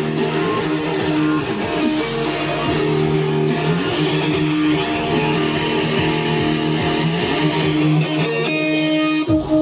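Electric guitar strumming held chords over a bass guitar.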